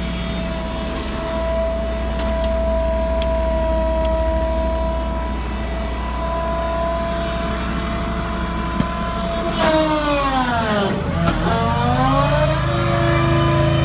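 An engine runs at a steady speed. About ten seconds in, its pitch drops sharply, as if it is slowing or being loaded down, then climbs back and settles at a new steady speed.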